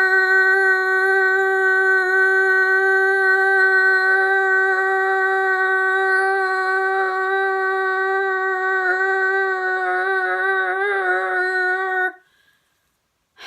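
A boy's voice holding the last syllable of a shouted "Fidget spinner!" as one long note on a steady pitch, drawn out as long as his breath lasts. The note wavers near the end and stops about twelve seconds in.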